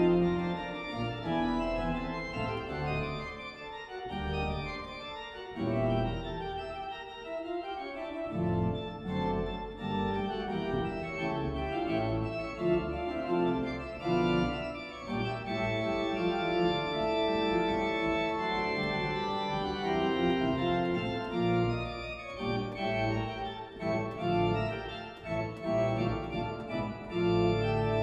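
Church organ playing sustained chords over low pedal notes, the chords changing every second or two.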